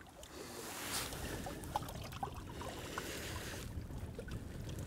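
Wind rumbling on the microphone over small waves lapping at a stony bank, with a few faint clicks from hands working fishing tackle.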